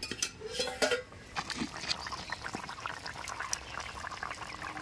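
A metal lid clinking against a metal pan as it is lifted off, then a fish curry bubbling hard at the boil with many small pops and crackles.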